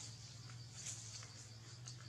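Faint insect chorus of crickets or cicadas, a steady high pulsing buzz, over a steady low hum, with two short high ticks about a second in and near the end.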